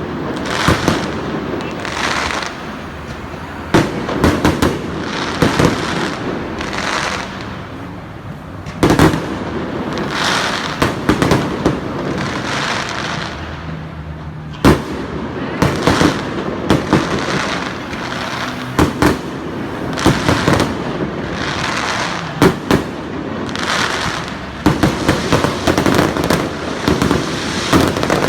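Aerial fireworks display: shells bursting in repeated sharp bangs every second or few, with crackling and hissing between the bursts.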